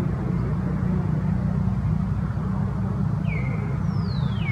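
Steady low rumble in the background, with a few short, thin, high calls late on, the last one sliding down in pitch near the end.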